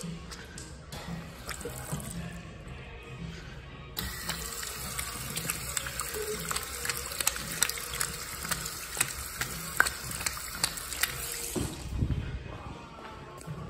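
Water from a restroom sink tap running and splashing over hands being washed, starting about four seconds in and stopping about two seconds before the end.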